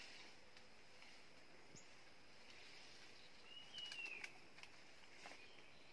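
Quiet forest background with a short, arched bird call about halfway through, alongside a few light snaps and rustles of someone stepping through undergrowth.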